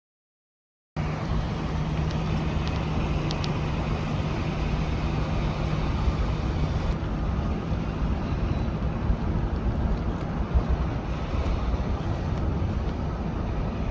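Steady rumble and hiss of trains running close by, starting abruptly about a second in, with a low engine hum that fades out about halfway through.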